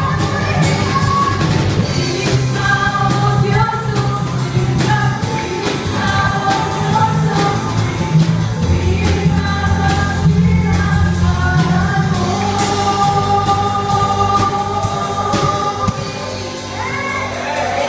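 A group of voices singing an upbeat song together over amplified accompaniment with a steady beat and a bass line. The music drops in loudness near the end.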